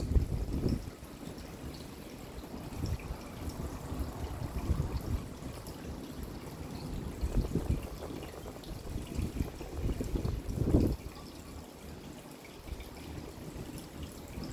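Rain falling, with water trickling and dripping. The noise swells and eases unevenly and rises to a brief louder surge about eleven seconds in.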